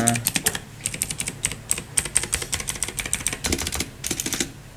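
Keys of an Imperion Mech 7 mechanical keyboard being pressed, giving quick, irregular clicks.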